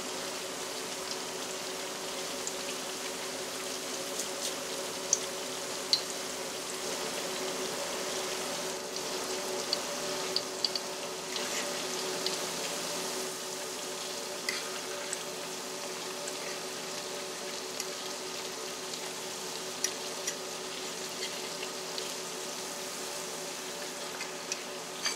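Tuna patties frying in hot oil in a cast iron skillet: a steady sizzle with scattered sharp pops and crackles of spattering oil.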